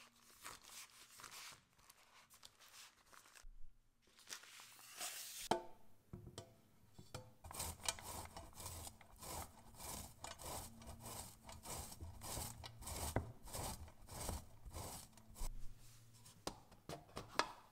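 Hands rubbing and rolling a sheet of puff pastry on a wooden board, then, from about six seconds in, a slice of mortadella grated on a stainless steel box grater, with rhythmic rasping strokes at about two a second.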